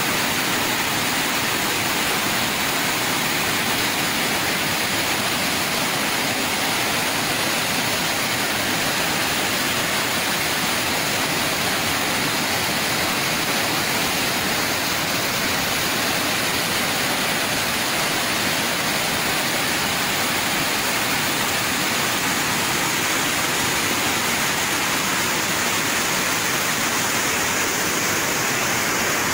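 Floodwater rushing fast down a street, with heavy rain: a steady, unbroken wash of water noise.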